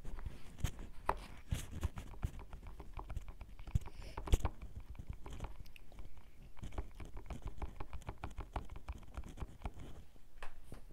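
Close-up crackling and tapping from fingers handling a headphone cable's inline microphone: dense, irregular clicks with a sharper one about four seconds in.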